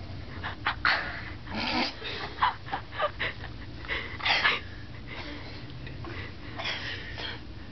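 Snoring: a run of irregular wheezy snorts and breaths over the first few seconds, then another group of snorting breaths near the end.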